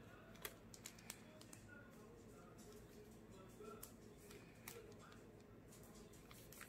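Faint handling noise: scattered soft clicks and crinkles of plastic protective film and a bubble mailer as hands turn a pair of metal-framed sunglasses, over a steady low room hum.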